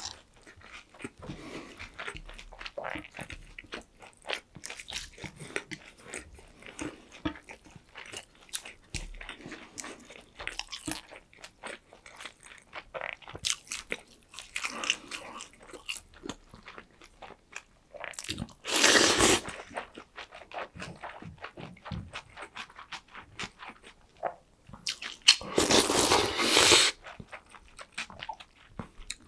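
Close-miked chewing and crunching of a meal of Korean cold noodles and breaded pork cutlet, a steady stream of small wet clicks. Two louder noisy bursts of about a second each stand out, one about two-thirds of the way in and one near the end.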